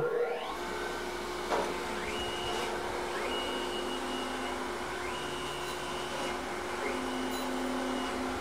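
Tormach PSG 612 surface grinder's wheel spindle motor spinning up and then running with a steady hum, while the table's automatic feed drive whines on and off every second or two as the table traverses back and forth.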